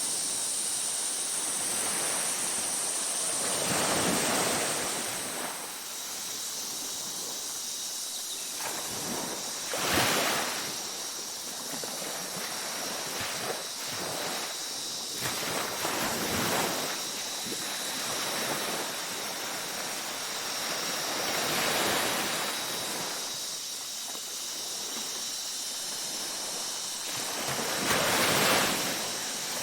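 Ocean waves breaking on a beach, five surges about six seconds apart over a constant wash of surf, the ones about ten seconds in and near the end the loudest. A steady high-pitched drone runs underneath.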